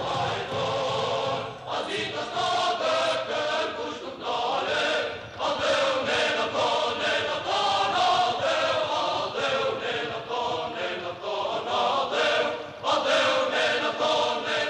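A choir singing a chant-like song in phrases a few seconds long, with short breaks between them.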